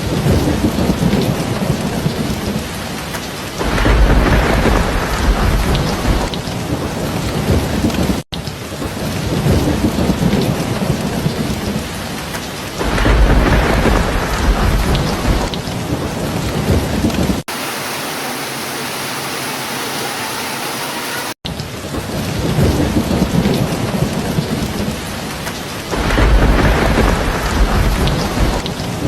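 Steady heavy rain with thunder rumbling three times, each rumble lasting a couple of seconds. Midway there are a few seconds of plain, even rain hiss, and the sound cuts out for an instant twice where the recording is spliced.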